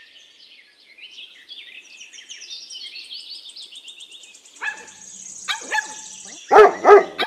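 Birds chirping quickly and high, then a dog barking: a few lighter barks, then two loud barks close together near the end.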